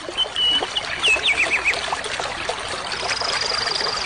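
Water trickling and babbling steadily like a small stream, with a few short chirps from a bird in the first two seconds and a thin high steady tone from about three seconds in.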